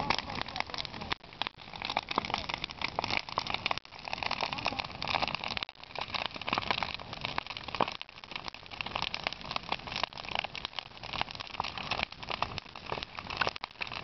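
Large bonfire of wooden boards and branches burning, with dense, continuous crackling and popping.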